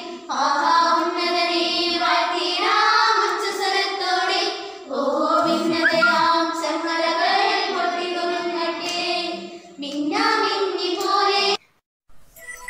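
A group of young girls singing a song together in phrases. Near the end the singing cuts off suddenly, and after a moment of silence an electronic tune with steady notes begins.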